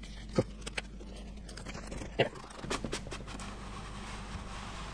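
Cardboard model-train box being handled: a few sharp taps and knocks against the desk, then a steady sliding hiss as the outer card sleeve is worked off the box.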